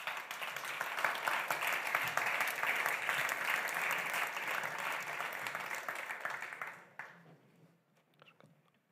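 Audience applauding in a hall, dense clapping that fades out after about seven seconds; a few faint knocks follow near the end.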